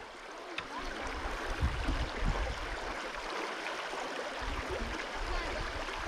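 Steady rush of flowing creek water, with a few low rumbles around two seconds in and again near the end.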